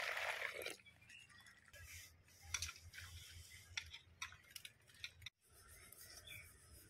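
Water pouring briefly into a steel bowl of flour for poori dough. Then faint scattered clicks and soft low thuds as the flour and water are mixed by hand.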